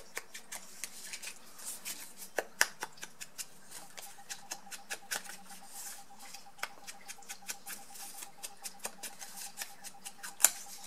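Kraft cardstock strip being distressed along its edges with a small hand tool to make it look aged: a run of quick, scratchy scraping strokes on the paper, ending with a sharp click.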